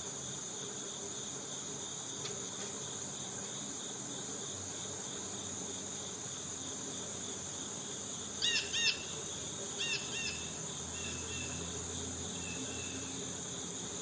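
Steady insect chorus of cicadas and crickets, a continuous high drone with a pulsing lower trill beneath it. A bird gives a few short chirps about two-thirds of the way through.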